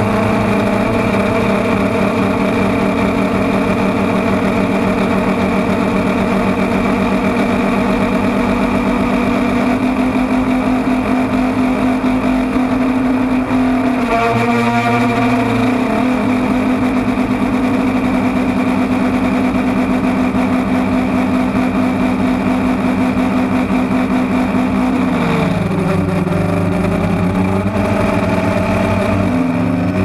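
DJI Phantom quadcopter's motors and propellers running in flight, heard through the GoPro mounted on the drone: a loud, steady hum. Its pitch wavers about halfway through and drops near the end as the motor speed changes.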